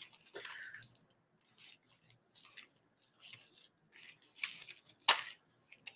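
Black plastic bag rustling and crinkling in short scattered bursts as it is folded and pressed flat by hand, with one sharper crinkle about five seconds in.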